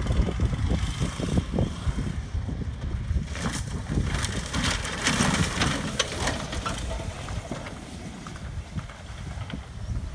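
A Ford F250 Super Duty's V10 gas engine as the truck drives past across a field, getting louder as it passes about halfway through, then fading away. Wind buffets the microphone throughout.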